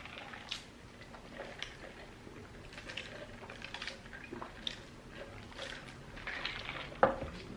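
A person chewing fast food close to the microphone: soft wet mouth clicks and crackles, with one sharper click about seven seconds in.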